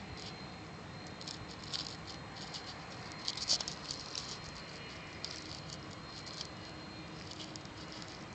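Irregular crackling and rustling close to the microphone, loudest about three and a half seconds in, over a faint steady hiss.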